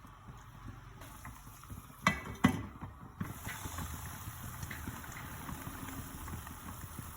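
Kitchen cooking sounds: two sharp knocks about two seconds in, then a steady sizzle of frying oil that sets in about a second later and holds.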